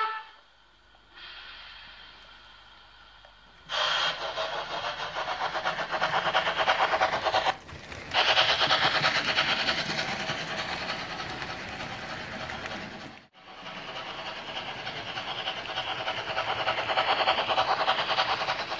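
Model steam train running past: a quiet stretch for the first few seconds, then, from about four seconds in, a loud, steady, finely rhythmic hissing steam sound over wheels rattling on the track, with two brief dips.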